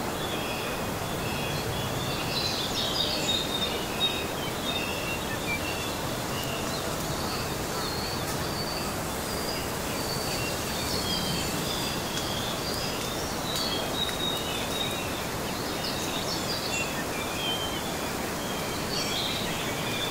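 Outdoor ambience: a steady hiss of background noise with small birds making many short, high chirping calls throughout.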